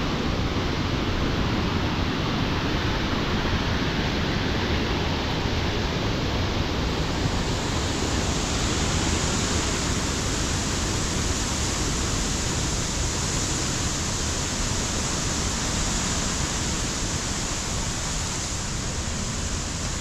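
Waterfall rushing: a steady wash of falling water.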